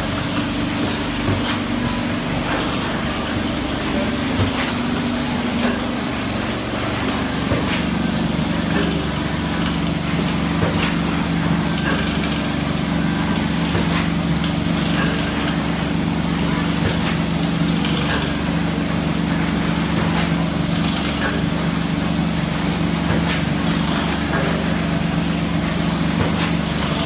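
Kiefel KMD 78 roll-fed thermoforming machine running: a steady mechanical hum with scattered clicks and hisses. The hum shifts lower in pitch about eight seconds in.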